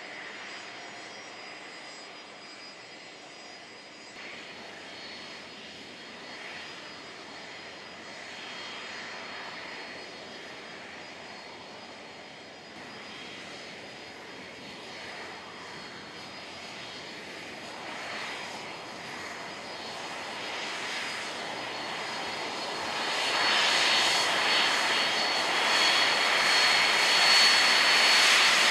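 Jet airliner engines running at taxi power: a steady high whine over a rushing noise. The sound grows markedly louder over the last few seconds as a Boeing 767-300 comes close.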